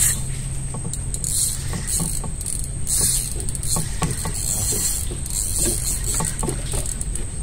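Fishing reel ratcheting and clicking in short bursts, about one a second, as a hooked fish is played and reeled in.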